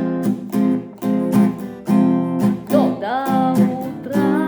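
Acoustic guitar strummed in a steady rhythm, chord after chord, on the verse's two chords, F minor and C minor.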